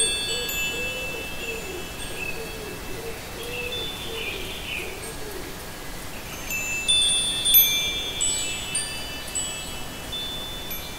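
Wind chimes ringing, with clusters of strikes near the start and again about seven seconds in. Underneath is a low wavering tone that fades out around the middle.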